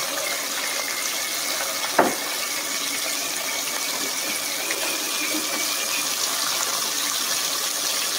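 Cornstarch-coated lobster pieces deep-frying in hot peanut oil: a steady, even sizzle. A single sharp knock sounds about two seconds in.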